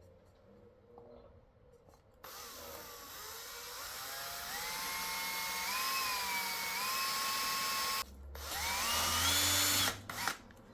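Power drill running slowly to widen a small hole in 5 mm plexiglass, its whine climbing in pitch in steps as the speed is eased up. It stops briefly, then runs again for a shorter stretch near the end.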